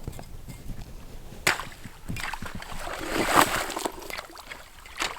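Ice being busted open on frozen cattle water: a sharp knock about a second and a half in, then a louder crunch of breaking ice with water sloshing a couple of seconds later.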